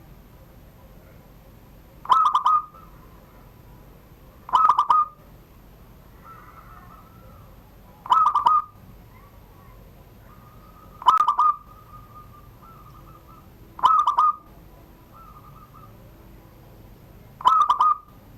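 Caged zebra dove (perkutut) singing its repeated coo phrases, the 'surung gdor' song style: six loud, short, rolling phrases about three seconds apart, with softer coo notes in between.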